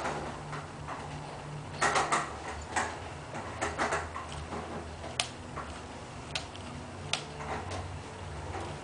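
Animatronic T-600 Terminator hand's finger mechanisms moving one finger at a time: a low hum under irregular sharp mechanical clicks, with a cluster of louder clicks about two seconds in.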